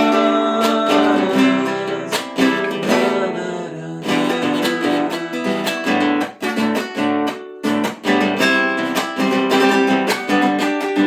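Acoustic guitar strummed and picked through an instrumental break in a ballad, chords ringing with a couple of short pauses in the second half.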